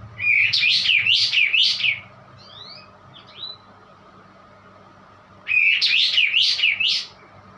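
A caged kapas tembak songbird giving an odd call that sounds strange for the species: two loud bursts of about four quick rising-and-falling notes each, lasting a second and a half, with a few short faint chirps in the pause between them.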